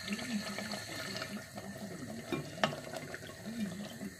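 A plastic ladle scooping thick meat curry in a clay pot, the gravy sloshing and slurping, with a sharp knock of the ladle against the pot about two and a half seconds in.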